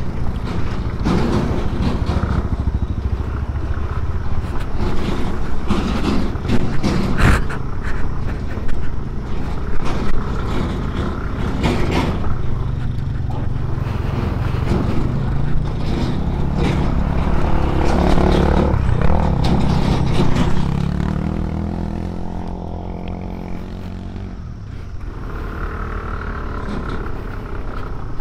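Aprilia SR150 scooter's single-cylinder engine running while it rides over a loose, rocky dirt track, with repeated knocks and clatters from stones under the wheels and suspension over a steady rush of wind on the mic. Midway the engine note climbs, then it drops back about two-thirds of the way in, and the sound settles quieter near the end.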